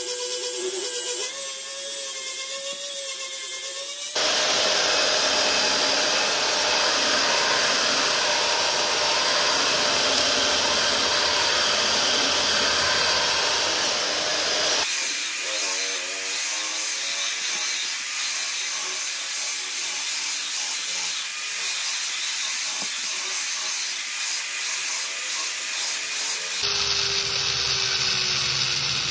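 Power tools grinding a steel dagger blade in several edited passes: an angle grinder's abrasive disc with a steady motor whine at the start, louder abrasive grinding from about four seconds in, a different grinding sound from about fifteen seconds in, and near the end a small high-speed rotary tool's cut-off disc grinding the steel.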